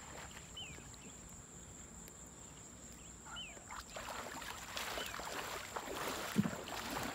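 Shallow river water splashing and sloshing around a person's legs as they wade through it carrying a cast net, growing louder from about four seconds in. Before that it is quiet apart from a bird's short, falling chirps, heard four times.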